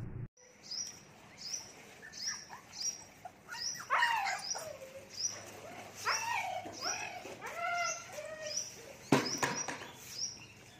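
Siberian husky puppy whining in a series of short yelps that rise and fall in pitch. Behind it a bird chirps high and short about twice a second, and there is one sharp knock about nine seconds in.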